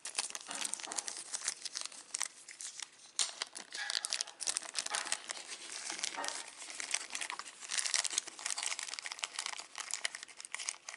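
Small clear plastic bag crinkling and rustling as it is handled in the fingers, with a steady run of small crackles, around spare metal watch-band links.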